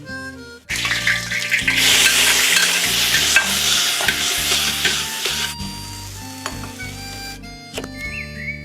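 Food hitting hot oil and sizzling loudly. It starts suddenly just under a second in and eases off after about five seconds, and is then stirred and fried at a lower hiss.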